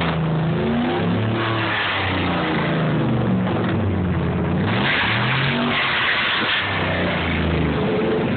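A 2002 Dodge Ram 1500 pickup's engine revved several times through a new dual exhaust with Cherry Bomb Extreme mufflers; the loud exhaust note climbs and drops back again and again.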